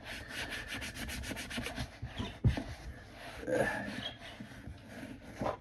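Leather balsam being rubbed into a black leather Dr. Martens boot in quick repeated strokes, conditioning the leather. A single sharp knock about two and a half seconds in is the loudest sound.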